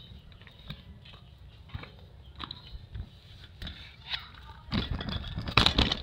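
Footsteps crunching on a stony dirt path, with scattered clicks and scrapes, and a louder stretch of rustling and crunching near the end.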